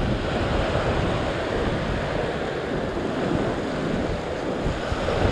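Ocean surf breaking and washing over a rock platform, a steady rushing wash, with wind buffeting the microphone.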